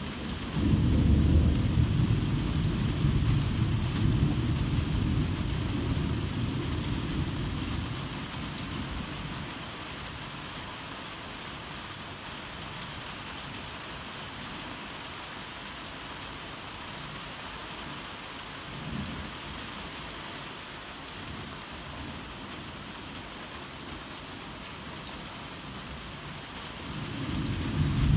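Heavy rain falling steadily, with a rolling rumble of thunder that breaks about a second in and dies away over several seconds. A faint rumble comes around the middle, and another peal of thunder builds near the end.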